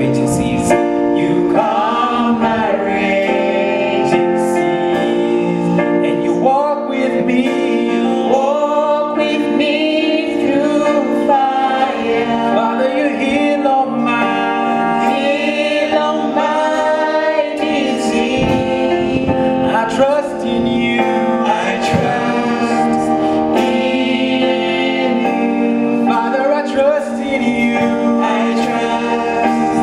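Gospel worship song sung by a group of male voices, backed by keyboard chords and a drum kit.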